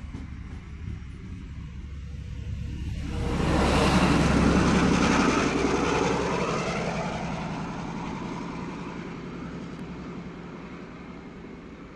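A train passing close by: the noise builds to a loud peak about four seconds in, then fades slowly as it moves away, over a steady low engine hum.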